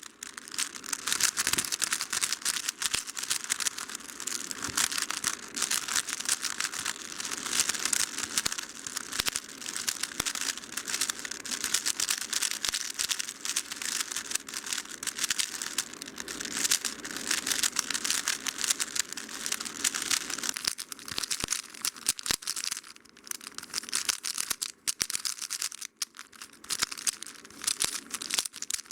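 3x3 speed cube being turned fast: a dense run of clicking and clacking as its plastic layers snap past each other, with a few short pauses near the end.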